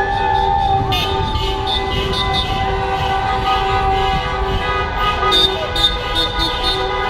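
Many car horns honking together in long, overlapping held blasts, a celebration honk from a street jammed with slow-moving traffic.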